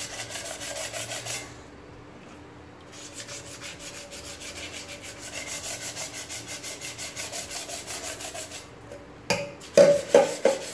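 Wet sandpaper scrubbing a steel milk pan in quick back-and-forth strokes, about four a second, rubbing off blackened stains. The scraping eases off for a couple of seconds early on. Near the end it comes back louder as the pan's bottom is scrubbed.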